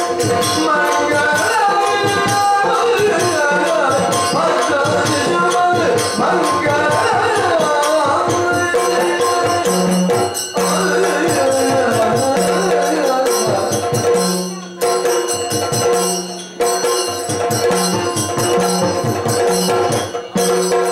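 Yakshagana bhagavata singing, accompanied by tala hand cymbals and by maddale and chende drums. About nine seconds in, the singing gives way to drumming and cymbals over a steady drone.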